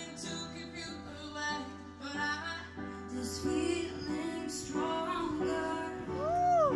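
Live pop singing into a handheld microphone, a woman's voice leading, over steady held backing chords. Near the end a vocal run rises and falls.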